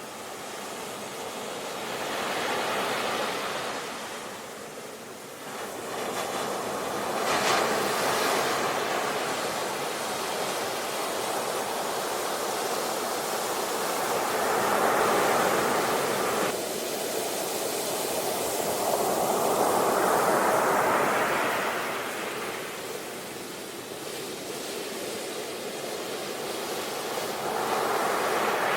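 Ocean waves breaking and washing in, the surf swelling into a loud rush and fading again about every five seconds.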